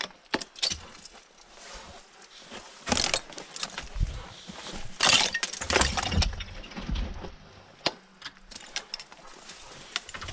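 A scatter of sharp cracks and light clattering knocks at irregular intervals, like brittle things snapping and breaking.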